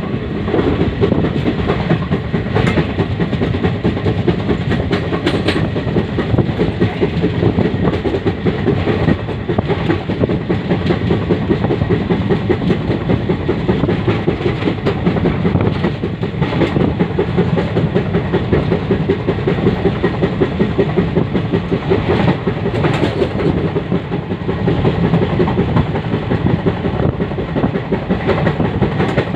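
Passenger train crossing a river bridge, heard from aboard: a steady rumble of wheels on the rails with a fast, even clatter.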